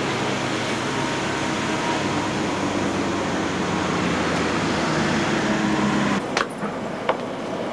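A vehicle engine running steadily with a low hum. It cuts off abruptly about six seconds in, and a few sharp clicks or knocks follow.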